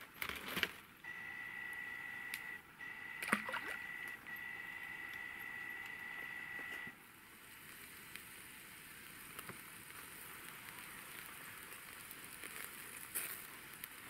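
A spinning reel being cranked, a steady high whine broken by a few short pauses, with a sharp click just before it starts. After about seven seconds it gives way to a soft, even hiss.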